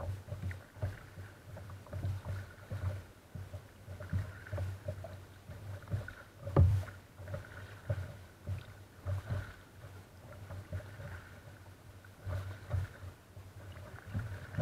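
Sea kayak being paddled through calm water: water splashing and lapping against the hull in irregular pulses, with one louder thump about six and a half seconds in.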